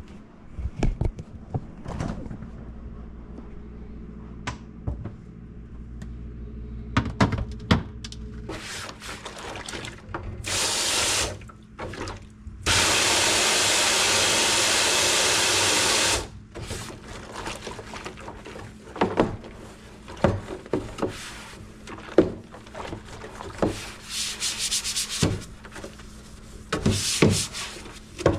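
A tap runs into a sink for a few seconds near the middle, starting and stopping abruptly. Before and after it come scattered knocks, clinks and rubbing as containers are handled and wiped.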